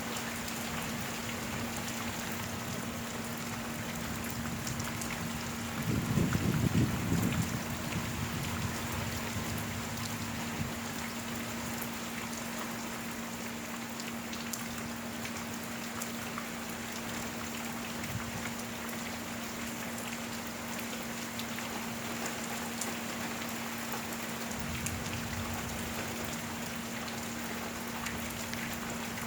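Steady rain falling, with many separate drops ticking on a surface. A louder low rumble swells for a couple of seconds about six seconds in, and a steady low hum runs underneath.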